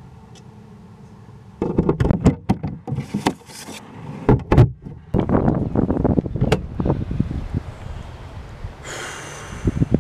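Knocks, clicks and rustling begin suddenly about a second and a half in: a plastic curbside mailbox being opened and a paper letter pulled out and handled. A short hiss comes near the end.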